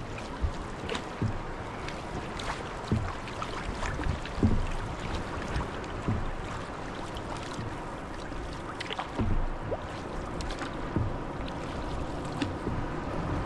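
Open canoe being paddled at sea: wooden paddles dipping and pulling through the water, with water washing and splashing along the hull. Irregular low thumps come every second or two over a steady wash of water and wind.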